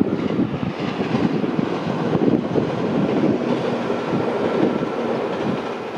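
Local electric commuter train on the JR Utsunomiya Line passing at speed: a steady rumble with the clatter of its wheels on the rails, and a faint thin whine running over it.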